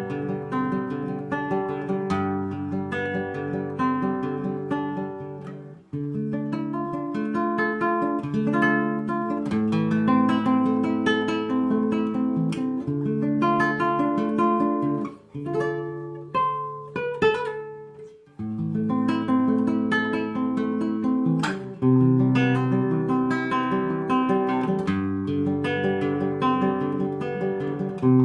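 Solo acoustic guitar playing a slow instrumental piece, plucked and strummed chords ringing out, with a few brief pauses between phrases.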